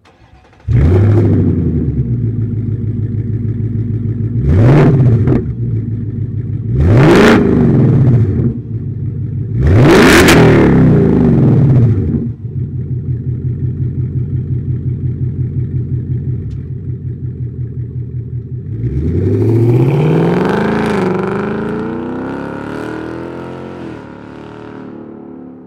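A 2024 Ford Mustang GT's 5.0L V8 through a MagnaFlow Competition Series cat-back exhaust with quad split rear exit, in normal mode. It cold-starts with a loud flare about a second in and settles to a pulsing idle, then gets three quick revs, the third the highest. After idling, it takes off near the end, the pitch rising, easing once and rising again, then fading as the car pulls away.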